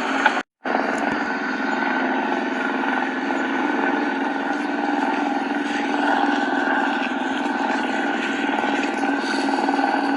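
Helicopter running: a steady engine and rotor noise with a constant hum, broken by a brief total silence about half a second in.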